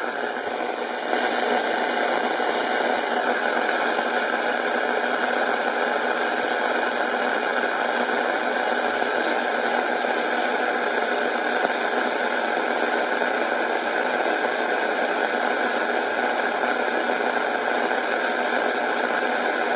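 Steady hissing noise like static, which gets a little louder about a second in and then holds even.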